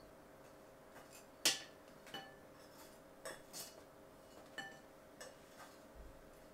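Scattered light clinks and knocks of kitchenware as baked madeleines are turned out of their mold onto a plate, some ringing briefly, with one sharper knock about a second and a half in. A faint steady hum runs underneath.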